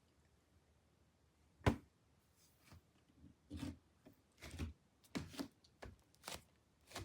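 A sharp knock, then a series of short rustling, rubbing handling sounds in a small room.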